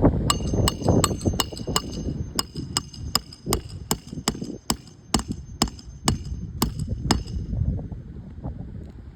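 Hammer striking metal in a quick steady series, about three blows a second, each with a bright metallic ring, stopping about seven seconds in. Wind rumbles on the microphone underneath.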